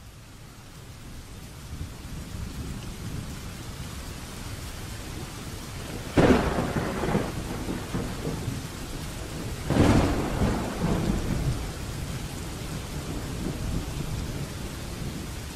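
Steady heavy rain, swelling in over the first couple of seconds, with two thunderclaps about six and ten seconds in, each rumbling away over a second or two.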